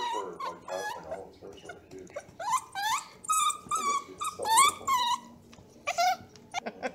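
Bluetick beagle puppy whining and yipping in play: a rapid string of short, high calls, several sliding upward in pitch, loudest a little past the middle.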